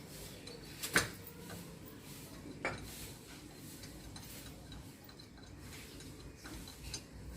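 A few sparse metallic clinks of hand tools and wheel hardware during wheel refitting on a car, the loudest about a second in, with quieter ones later.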